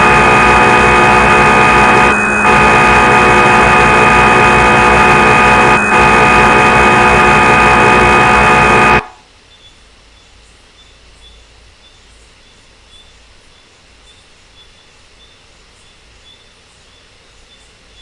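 The CNC lathe simulator's machining sound effect: a loud, steady electronic hum made of several fixed pitches, dipping briefly twice, then cutting off suddenly about halfway through, leaving only faint background hiss.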